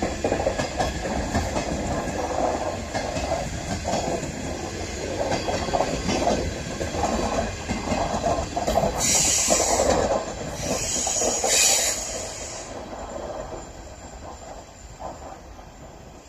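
A train of passenger coaches rolling past, its wheels clattering rhythmically over the rail joints. Twice around the middle a high hissing squeal rises over the clatter. The sound fades near the end as the last coach goes by.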